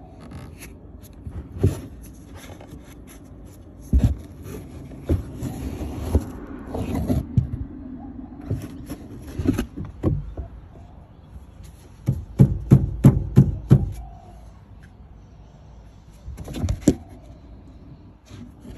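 Irregular knocks and taps with some scraping as the plastic fuel filler pipe is knocked and worked against its metal guard plate, including a quick run of about half a dozen knocks about two-thirds of the way through.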